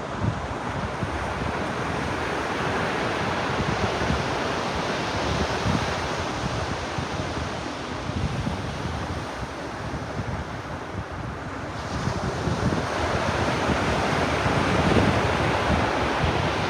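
Ocean waves washing onto a beach, a steady surf wash that swells a little in the second half, with wind buffeting the microphone.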